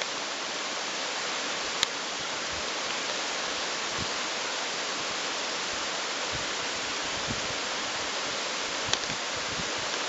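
Steady, even rush of a waterfall, heard as an unbroken hiss. Two light ticks come through it, near the start and near the end.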